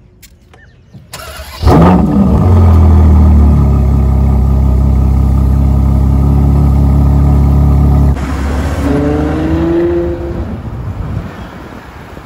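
Ferrari 812 Superfast's 6.5-litre V12 starting: a brief starter whirr, then it catches with a loud flare of revs about two seconds in and settles into a steady idle that steps down slightly in pitch a couple of seconds later. Near eight seconds the sound changes abruptly to the car accelerating with rising pitch, fading under wind noise near the end.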